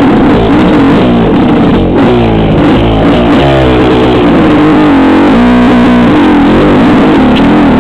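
Dirt bike engine revving up and down under changing throttle, loud and close, clipped to a harsh distortion.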